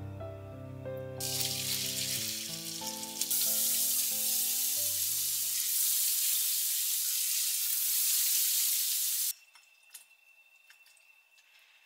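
Water pouring hard through a mesh strainer of blanched komatsuna into a bowl. It builds over a few seconds, runs steadily, and stops suddenly about nine seconds in. Background music plays over the first half.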